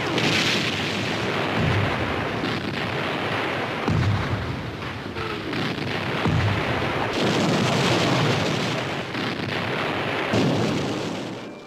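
Artillery shell explosions in a continuous barrage: a dense rumble and crackle with a heavy blast about every two seconds.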